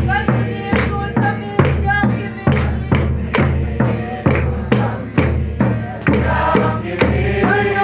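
A group of voices singing a hymn together to acoustic guitar, over a steady drum beat.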